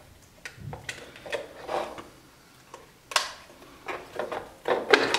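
Plastic blender jug being worked onto its motor base: a series of short plastic clicks and knocks, the loudest about three seconds in, as the jug is turned and pressed to click it into place.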